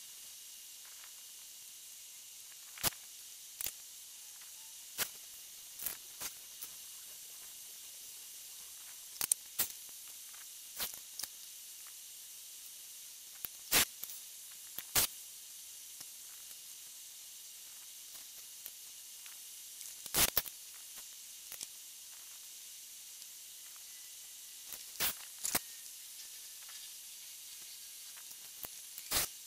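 Steady high hiss with about twenty short, sharp clicks scattered at irregular intervals, the loudest a little under halfway and about two-thirds of the way through.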